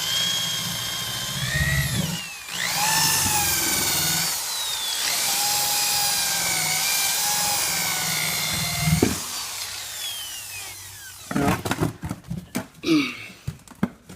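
Electric drill spinning a polishing pad against car paint, buffing rubbing compound into scratches. The whine speeds up, dips briefly about two seconds in and wavers in pitch as the pad drags, then winds down with a falling whine a little after nine seconds. A few knocks and clicks of handling follow near the end.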